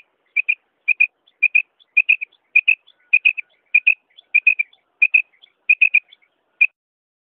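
Female common quail calling: short, sharp notes in pairs or threes, repeated about every 0.6 s, the last group coming shortly before the end. This is the hen's call that hunters use to lure male quail.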